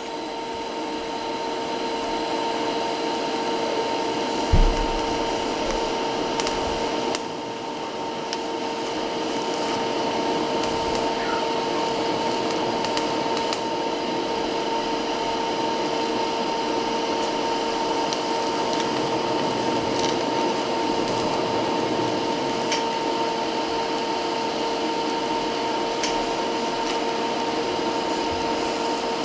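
TIG welding arc running steadily as a joint is welded up: a continuous hiss with a constant hum. A single brief thump about four and a half seconds in.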